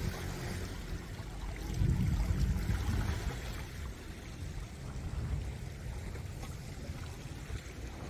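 Wind buffeting the microphone, strongest about two seconds in, over faint lapping of shallow sea water.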